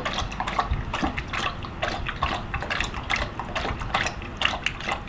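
Dog lapping water from a stainless steel bowl: a quick, irregular run of wet laps and splashes, about three to four a second.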